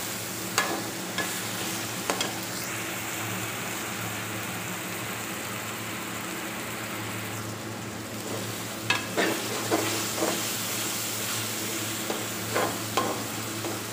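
Onions, tomato and green chillies with ginger-garlic paste sizzling steadily in hot oil in a metal pot, stirred with a slotted metal spoon. The spoon scrapes and taps against the pot now and then, several times close together about nine seconds in and again near the end.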